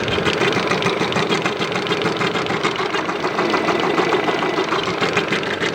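2013 Lada Granta's 16-valve four-cylinder engine running at idle with a fast, steady ticking knock. The knock and extraneous noise come from the belt area and are caused by the drive belt.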